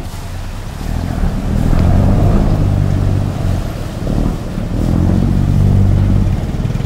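Khlong Saen Saep canal express boat's diesel engine revving to pull away from the pier, its propeller churning the water. The low engine note swells about a second in, eases briefly around four seconds, then rises again.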